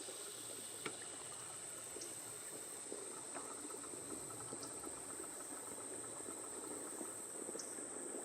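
Steady, high-pitched droning of insects, with a few faint ticks now and then.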